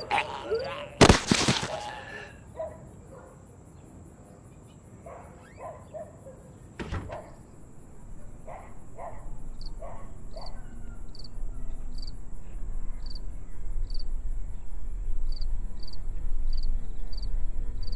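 A single gunshot about a second in, ringing out briefly. Then crickets chirping at night from about ten seconds on, over a low drone that swells near the end.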